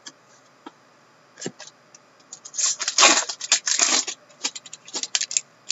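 Trading cards being slid and flicked against one another in the hands: a few single clicks, then a dense run of papery rustling and clicking about halfway through, trailing off into scattered clicks.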